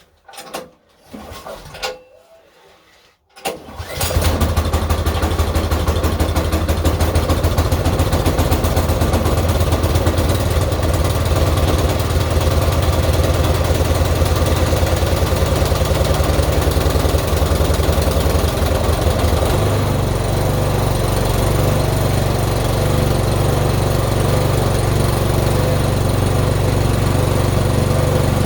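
Craftsman snowblower's small engine starting cold on full choke with the throttle at low ('turtle'): a few knocks, then it catches about four seconds in and runs loud and steady. Its low note shifts slightly about two-thirds of the way through.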